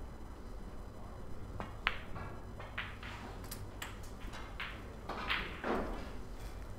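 Snooker balls on a match table: the cue tip striking the cue ball and a sharp ball-on-ball click about two seconds in as the black is potted, followed by a string of lighter knocks as the balls run into the cushions and the pocket.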